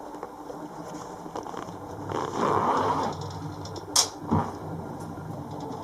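Light handling noises while a shower corner trim is set in place: a soft rustle, then a sharp click about four seconds in, followed by a softer knock.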